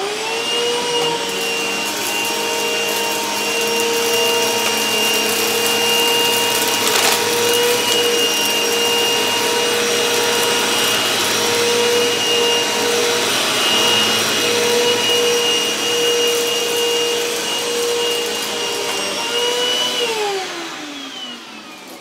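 Eureka Maxima upright vacuum cleaner switched on and running with a steady high whine as it is pushed over shredded paper on a rug, with one sharp click about seven seconds in. About twenty seconds in it is switched off and the whine falls away as the motor spins down.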